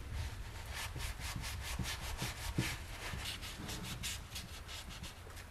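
Paper towel wiping a wet steel hammer head and the wooden bench in quick rubbing strokes, about four a second, with a few soft knocks in the middle.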